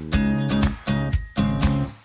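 Background music with a steady beat, new notes coming in about twice a second.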